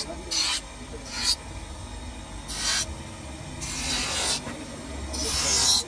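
Wooden knife handle being ground on a bench grinder wheel: five short hissing rasps, each as the wood is pressed to the spinning wheel, the fourth the longest, over the grinder motor's steady low hum.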